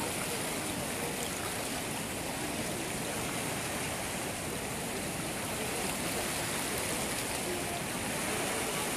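Steady rushing of the Narayani River in flood, a fast, swollen current of muddy floodwater pouring past.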